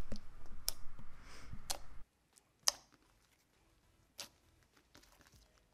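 Thick, cream-cheese-textured slime with small beads being squished and pressed by hand, giving scattered sharp clicks and pops. A low background hum cuts off about two seconds in.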